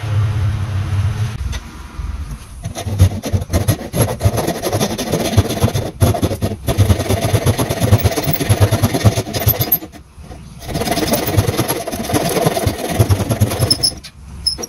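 Japanese pull saw cutting a tenon in eucalyptus hardwood held in a bench vise: fast, steady rasping strokes in two runs with a short pause about ten seconds in. A low steady hum sounds for the first second or so.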